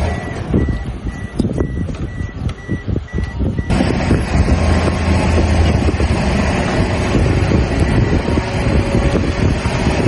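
A vehicle's reversing beeper sounding in even beeps, about two a second, over low engine rumble; a little over three seconds in the beeping fades and a louder, fuller vehicle noise takes over.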